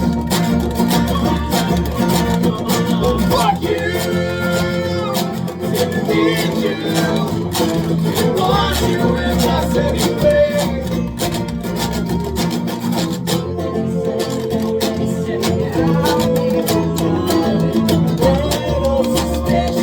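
A band playing live, led by guitars, with sharp percussive hits throughout.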